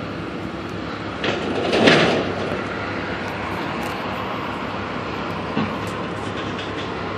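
Komatsu excavator running steadily during demolition. About a second in comes a loud crash and scrape of metal debris, and a short knock follows near the end.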